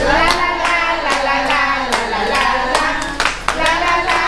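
Hands clapping in a steady rhythm, about three claps a second, keeping time with a song whose sustained melody carries on underneath without words.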